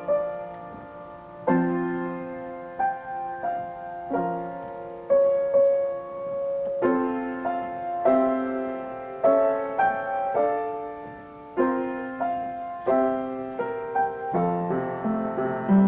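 Solo piano playing a slow, gentle piece, with a chord struck every second or so and left to ring.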